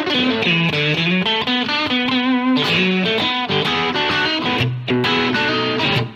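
Electric guitar with Black-eyed Susan single-coil pickups, played through a Fender Vibrolux Reverb amp and a ZVex Distortion pedal. It plays an overdriven lead line of single notes with vibrato on the held notes. There is a brief break just before the end.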